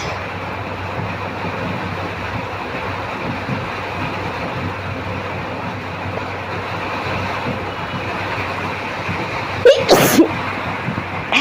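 A person sneezes once, loudly and suddenly, about ten seconds in, set off by tickling the nose with a cotton bud. Before it there is only a steady background hiss.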